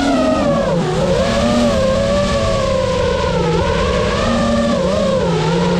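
A 5-inch FPV quadcopter's motors and propellers whining, heard from its onboard GoPro. The whine holds several tones at once and keeps rising and falling in pitch with the throttle, over a rushing low noise.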